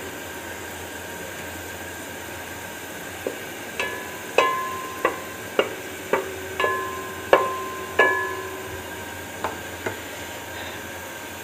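Chopped garlic sizzling in hot oil in a metal pot while a spatula stirs it. From about three seconds in until near the end, the spatula knocks against the pot about a dozen times, and each knock makes the pot ring; the knocks are the loudest sound.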